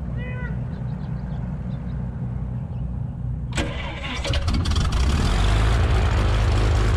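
Piper Cherokee Six's six-cylinder Lycoming engine being started: a low rumble as it turns over, then it catches about three and a half seconds in and runs up loud and steady.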